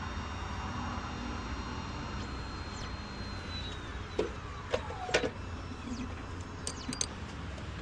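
Steady low rumble of a running vehicle or passing traffic. A faint tone glides downward through the middle, and a few short sharp clicks come in the second half.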